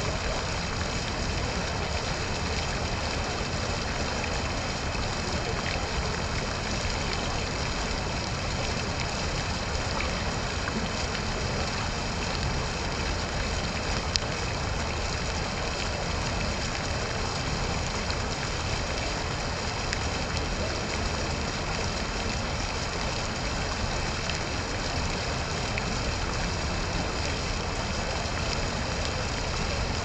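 Fountain water splashing and spilling steadily into its basin, with one brief click about halfway through.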